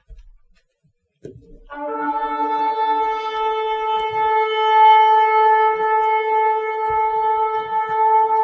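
Ram's-horn shofar blown in one long, steady blast. It starts about a second and a half in with a brief lower note that jumps up to the held main note.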